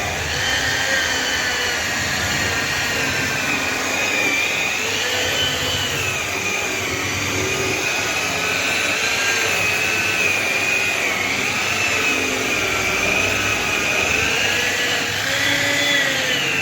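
Electric rotary polisher running steadily while buffing a motorcycle's bodywork, its motor whine wavering up and down in pitch.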